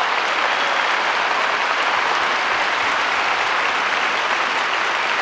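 A large arena crowd applauding: a dense, even wash of clapping that holds steady throughout.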